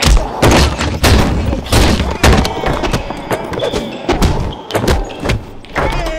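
Sound-designed fight impacts: a run of heavy thuds and booms, about two a second, as a door is forced and kicked shut against someone behind it.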